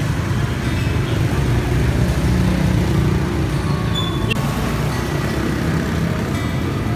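Steady low rumble of a motor vehicle's engine running close by, a little louder between about two and four seconds in.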